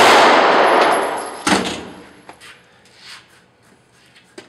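Glock 19 9mm pistol fired in a rapid string in an indoor range, the shots running together in the room's echo and fading out, with one last sharp shot about a second and a half in. A few light clicks follow.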